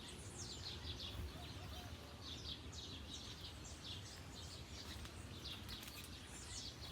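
Small birds chirping busily, many short falling notes in quick succession, over a low steady rumble.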